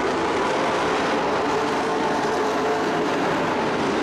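Several dirt-track racing trucks' engines running at speed together around the oval: a steady, loud blend of engine noise with no single event standing out.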